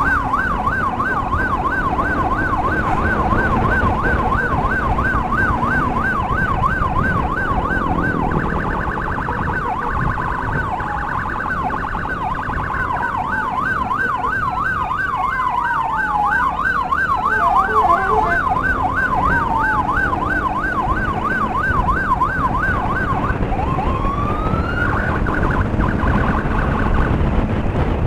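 Emergency sirens yelping in a fast up-and-down wail, which switches briefly to a quicker warble about eight seconds in. A second siren's slower falling sweeps overlap it. Near the end the yelp cuts out, sweeps up again and stops, over a steady low rumble of wind and engine noise from the moving motorcycle.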